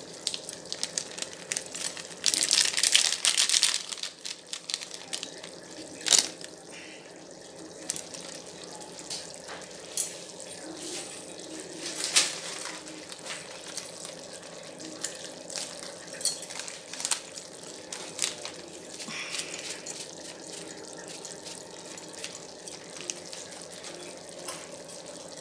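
Chicken simmering in its own released liquid in a pan, bubbling steadily with scattered small pops. About two seconds in there is a louder hiss lasting a couple of seconds.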